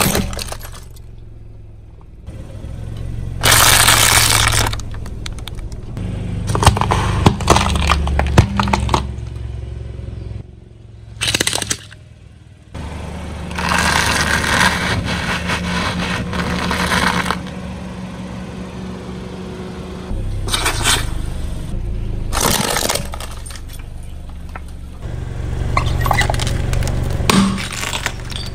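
A car's tyre rolling over and crushing objects: a series of crunching, cracking breaks that come every few seconds, some brief and some drawn out over a few seconds, over the low steady running of the car's engine.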